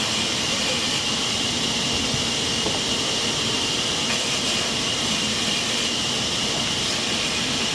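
Sawmill saw running steady and unbroken, cutting through timber.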